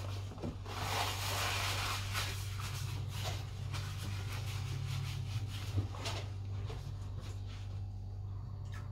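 Rubbing and rustling noises from close handling, densest in the first few seconds, over a steady low hum.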